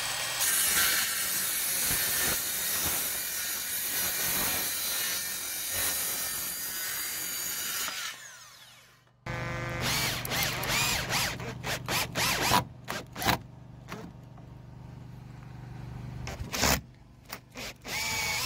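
Circular saw running and cutting through 4x2 softwood for about eight seconds, then spinning down. After that, a drill drives long wood screws into the timber frame in a series of short stop-start bursts.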